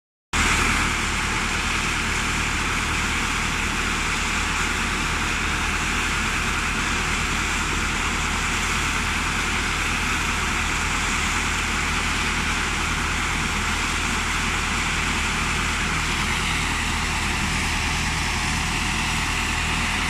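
Self-loading concrete mixer truck's diesel engine running steadily while the drum discharges concrete down the chute, a constant drone starting just after the opening.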